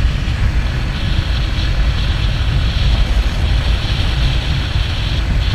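Steady wind rush on a helmet-mounted microphone with engine and road noise underneath, from a sport motorcycle cruising at highway speed.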